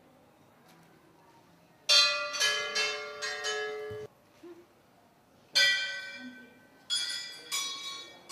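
Metal temple bell rung with repeated quick strikes, each ringing on, starting about two seconds in. It breaks off suddenly around four seconds, then after a short pause is struck again several times.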